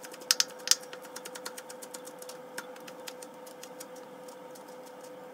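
Knife rapidly chopping green onions on a wooden cutting board, a quick run of sharp taps that is loudest in the first second and then goes on more lightly.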